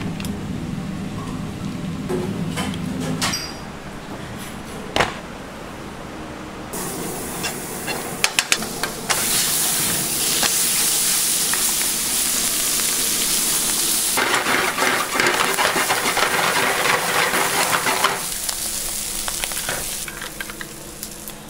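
Seafood frying on a hot pan, sizzling loudly with a high hiss that swells about halfway through, with a few sharp utensil clicks.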